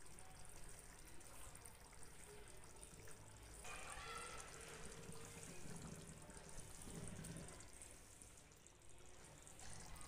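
Faint bubbling and trickling of a prawn masala gravy simmering in a steel pan.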